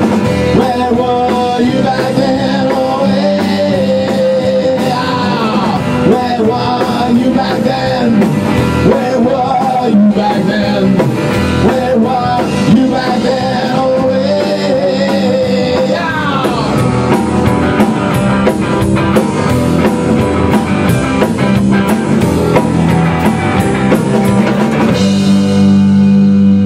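Rock band playing live: drum kit, electric guitar and bass guitar, with a wavering melody line and a few falling slides. About 25 seconds in, the drums stop and a held guitar chord rings on as the song ends.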